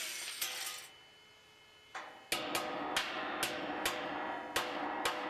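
Angle grinder cutting into steel plate, stopping about a second in. After a short lull, a run of sharp knocks starts a bit over two seconds in, several a second, over faint steady tones.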